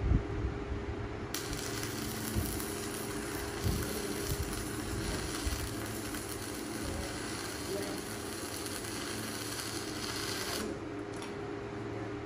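A workshop tool's steady hiss that switches on about a second in and cuts off sharply near the end, over a low steady hum, with a few knocks in the first few seconds.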